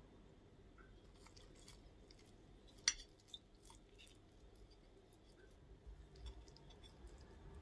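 Faint clicks and scrapes of a metal fork against a ceramic plate as it cuts into a whitebait fritter, with one sharp clink about three seconds in.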